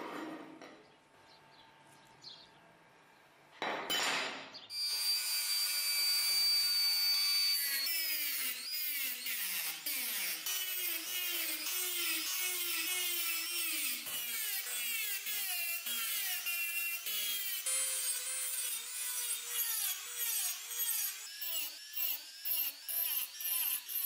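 Handheld rotary tool with a small abrasive cut-off disc cutting notches into steel, its whine dropping in pitch each time the disc bites, about twice a second. The first few seconds are quiet apart from one brief burst, and the cuts turn shorter and choppier near the end.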